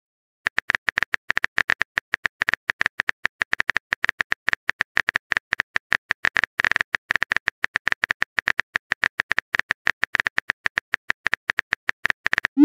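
Texting-app typing sound effect: rapid, evenly repeated keyboard clicks as a message is typed out, starting about half a second in.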